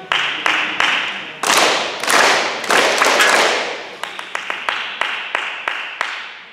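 Children clapping a rhythm together, sharp claps about three a second with a louder, denser run in the middle, echoing around a school gymnasium.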